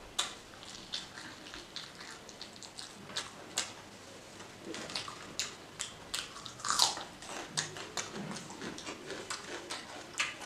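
Close-miked chewing of pork curry and rice eaten by hand: a steady run of soft wet mouth clicks and lip smacks, with one louder, longer wet sound about two thirds of the way through.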